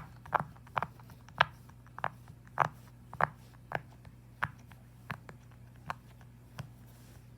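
A fidget toy being worked by hand: about a dozen short, sharp clicking pops. They come about twice a second at first, then slow down and grow fainter toward the end.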